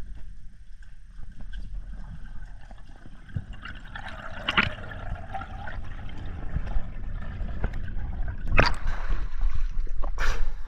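Underwater water noise picked up by a diver's camera: a low steady rumble with bubbling, then loud splashing near the end as the freediver breaks the surface.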